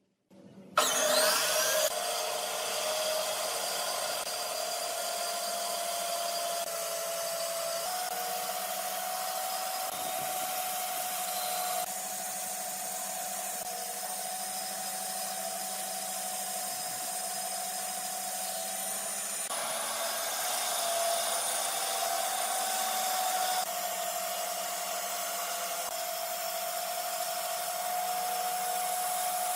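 A small electric power tool working wood, starting about a second in: a continuous motor whine over a hiss, with small abrupt jumps in pitch every few seconds.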